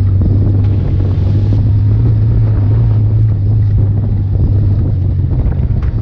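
Fuel-injected dune buggy engine running steadily as the buggy drives, with wind buffeting the microphone.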